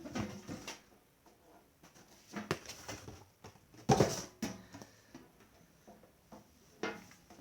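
Handling noise as an alarm panel in its packaging is pulled from a box: irregular knocks, scrapes and rustles, with the loudest knock about four seconds in and another near the end.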